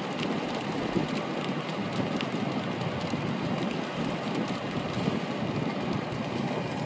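Steady hiss of rain and tyres on a wet road, heard from inside a moving car, with a few faint scattered ticks.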